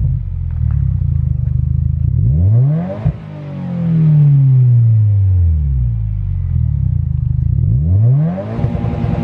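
Subaru WRX turbocharged flat-four through an Invidia R400 cat-back exhaust on the stock downpipe, idling and then free-revved twice. Each rev climbs quickly and falls back slowly, with a sharp pop at the top of the first.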